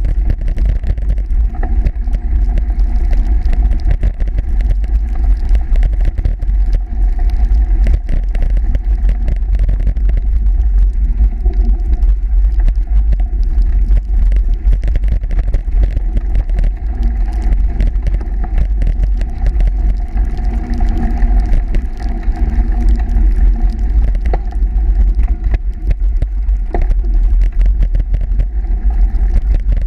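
Steady low rumble of a bicycle riding over snow, heard through a bike-mounted action camera, with wind buffeting the microphone and many small knocks and rattles from bumps in the trail.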